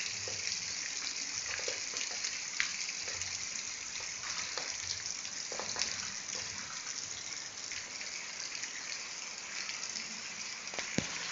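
Heavy rain falling steadily as a dense hiss, with scattered louder drops ticking on nearby surfaces; one sharp tick near the end.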